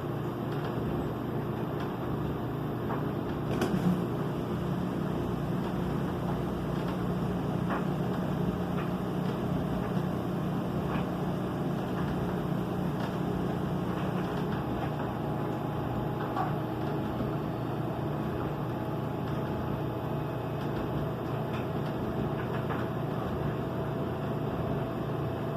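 LG front-load washing machine running steadily with a continuous motor-and-drum hum, late in its rinse and spin cycle. There is a single light knock about four seconds in, and the hum's tone shifts slightly about halfway through.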